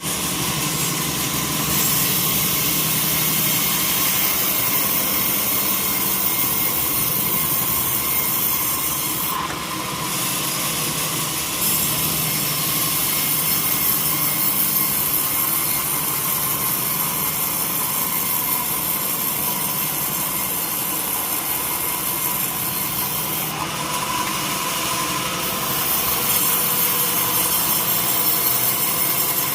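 Sawmill saw cutting through a teak log: a steady, loud machine run with a high hiss that briefly drops away twice.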